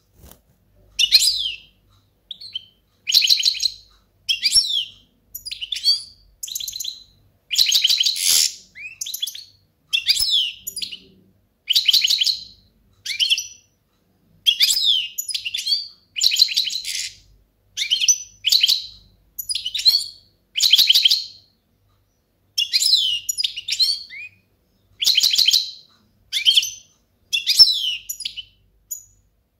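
European goldfinch singing: a long run of rapid twittering, trilled phrases, each about a second long, separated by short pauses.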